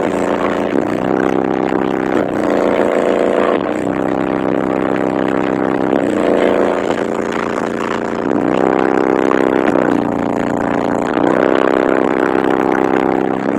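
Kicker CVX 15-inch subwoofer in a sealed box, powered by a CT Sounds 1400.1 amplifier, playing a slowed bass-heavy song at high volume. The bass is loud and distorted, with the notes changing every second or two.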